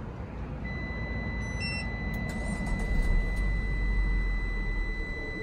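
A steady, high electronic beep tone held for about five seconds, with a quick run of short, higher chirps about a second and a half in. A low, steady rumble runs underneath.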